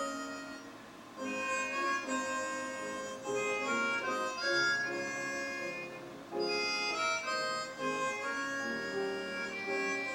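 Instrumental gospel music: a melody of long held notes played in phrases, with short breaks about a second in and again about six seconds in.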